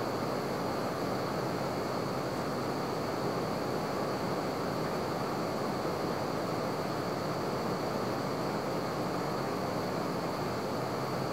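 SOTO SOD-300 gas stove burners running at full flame: a steady, even rushing hiss.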